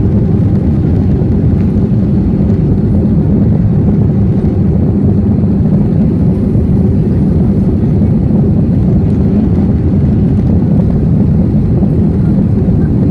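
Airbus A321 cabin noise in the climb after takeoff: a steady, loud, low rumble of jet engines and airflow, heard from a window seat inside the cabin.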